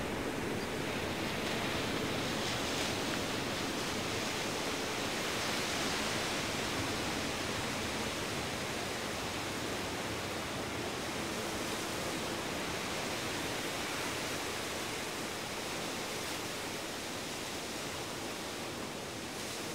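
Steady rushing noise with gentle swells, easing down slowly over the last seconds.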